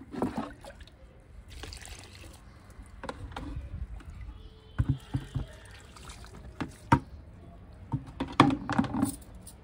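Liquid fertilizer poured from a plastic tub onto the soil of potted plants, splashing and trickling in several separate pours, the loudest about eight seconds in.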